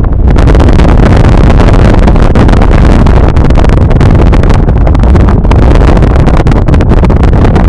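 Loud, steady low rumble and road noise of a moving car.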